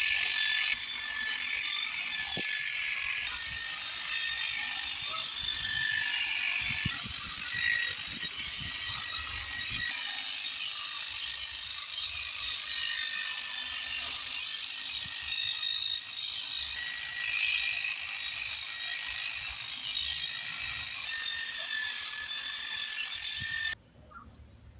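Electric sheep-shearing clippers running steadily as they cut through a sheep's fleece, a constant high-pitched buzz. They cut off suddenly near the end.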